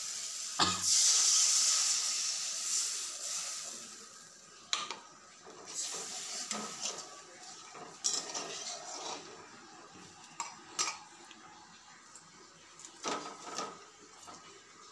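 Water hitting hot fried spice paste in a wok: a loud sizzle bursts up about a second in and fades over the next few seconds. After that, a metal spatula clinks and knocks against the wok, with scattered sharp strikes.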